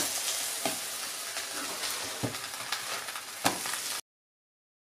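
Blueberry pancakes sizzling in a non-stick frying pan on maximum heat, with a few short knocks and scrapes of a spatula as they are turned over. The sound cuts off suddenly about four seconds in.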